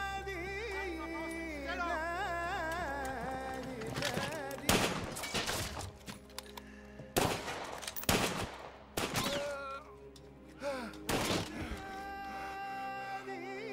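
Film score with a wavering, sung-like melody over held tones, broken off by about five loud bursts of gunfire between about four and eleven seconds in; the held musical tones return near the end.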